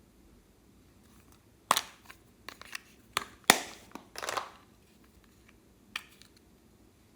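Slime being squeezed and worked by hand, giving a handful of sharp, crackly pops and squelches in short bursts. The loudest come in a cluster around the middle, with one last pop near the end.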